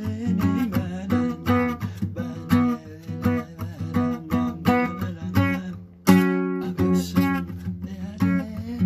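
Guitar music: plucked notes in a steady rhythm, with a loud strum about six seconds in.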